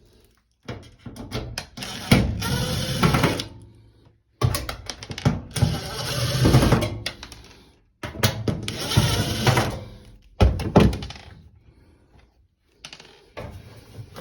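Power drill-driver backing out screws from a washing machine's back cover: four loud runs of about two to three seconds each, with short pauses between them.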